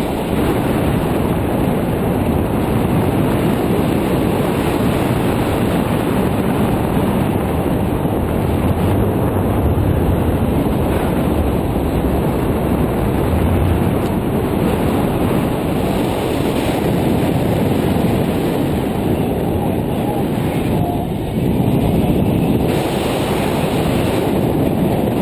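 Steady rush and rumble of flight wind over the microphone of a GoPro Hero 2 in an open housing, on a paraglider gliding at about 40 km/h.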